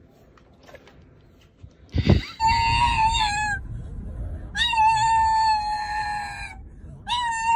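Pug letting out long, high-pitched whining cries, two of them and a third starting near the end, the middle one about two seconds long, over the low rumble of the car.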